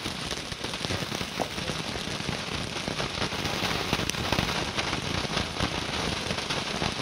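Bulldog Fireworks Blue Fish ground fountain spraying sparks: a steady hiss full of fine crackles.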